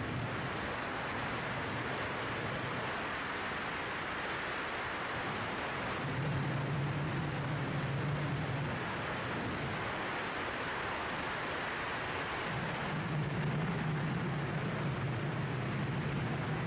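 Steady rush of wind over the camera's microphone in freefall during a wingsuit flight, with a low hum in the wind that swells about six seconds in and again past twelve seconds.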